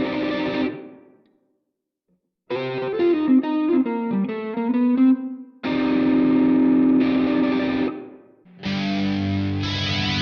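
Squier Classic Vibe '50s Telecaster electric guitar played through a Positive Grid Spark 40 amp. A held chord dies away, then after a short pause comes a quick run of single notes, then two more ringing chords, the last with more bass.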